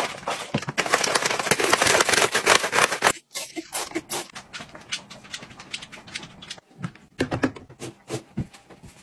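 Water sloshing and splashing as a flat mop is worked up and down in a plastic bucket of water. After a brief break about three seconds in, a run of separate scrapes and clicks follows as the plastic mop head moves over the tile floor.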